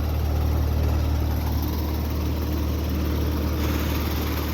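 2017 Carrier Sentry 3-ton heat pump running steadily in cool mode soon after start-up: a steady low compressor hum under the even rush of the outdoor fan.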